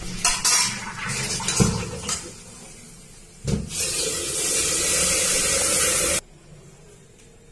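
Metal spatula scraping and knocking in a steel kadai while the prawn fry is moved, over a hiss of the masala sizzling in the hot pan. The hiss stops abruptly about six seconds in.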